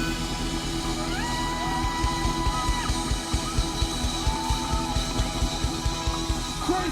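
Rock band music with a steady drum beat and long held notes that slide between pitches.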